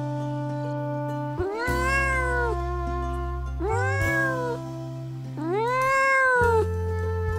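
A cat meowing three times, each meow rising and then falling in pitch, over steady background music.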